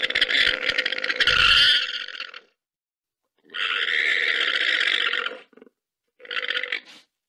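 An animal's loud, rough calls, three in a row: a long one at the start, another of about two seconds in the middle, and a short one near the end.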